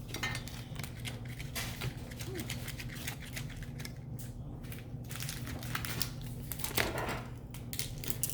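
Hands handling a Pokémon card mini tin and its plastic packaging: a run of irregular small clicks, taps and crinkles as the plastic is worked loose.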